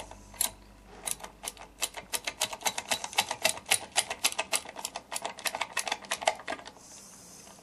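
Socket ratchet wrench clicking quickly and evenly, several clicks a second, as a bolt on a drum-brake backing plate is backed out once the socket has finally gripped. The clicking stops near the end.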